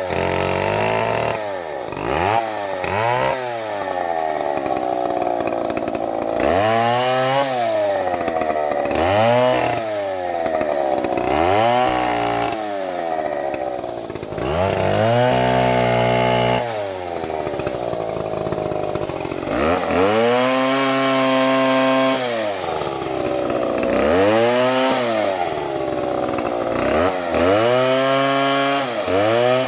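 Two-stroke STIHL MS720 chainsaw being revved up and let back down over and over, every two to three seconds, with two longer stretches held at high revs partway through, while cutting into a tree.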